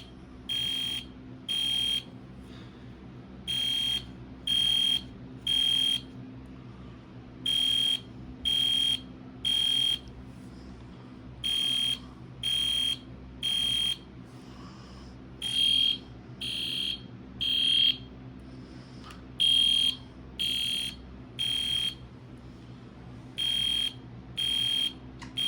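EST Genesis fire alarm horn sounding in the temporal-3 evacuation pattern: three short high-pitched beeps, a pause, repeating about every four seconds. Tape over the horn from the inside keeps it not very loud, and it is running on a 12-volt DC supply though meant for 24 volts.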